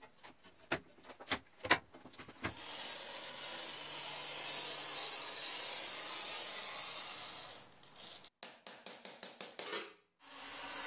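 Glass cutter scoring a pane of old window glass along a straightedge: a steady scratchy hiss for about five seconds, after a few scattered clicks. Near the end comes a quick run of about eight clicks, then the hiss starts again.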